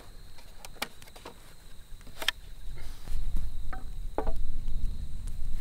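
Steady high-pitched insect chorus, with a few sharp clicks scattered through it. From about halfway, a louder low rumble comes in.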